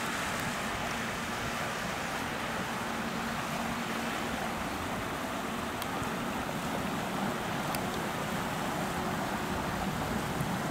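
Inland motor cargo barge passing close by: a steady rush of water and wind, with a faint low hum of its diesel engine.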